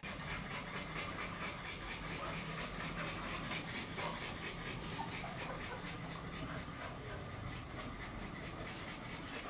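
Adult pitbulls panting softly as they sniff at small puppies, over a steady low hum.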